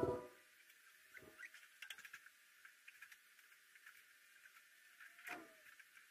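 A power tool winds down and stops right at the start. Then come faint handling sounds: light taps and clicks as plastic pipe spacers are set across a cabinet top and a laminate sheet is laid over them, with a short squeak about five seconds in.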